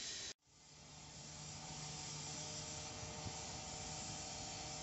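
Steam hissing steadily from the 1915 Kerr Stuart steam locomotive 'Joffre', with faint steady tones underneath. The sound cuts out briefly about a third of a second in, then swells back and holds steady.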